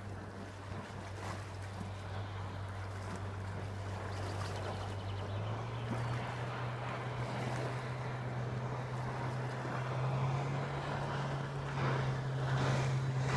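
Boat engine running with a steady low hum that steps up in pitch about five seconds in as it speeds up, growing slowly louder, with water and wind rushing.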